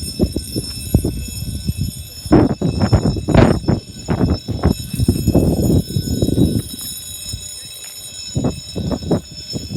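Building fire alarm sounding continuously, a steady high ringing as from a fire alarm bell. Frequent close, loud low knocks and thumps run over it.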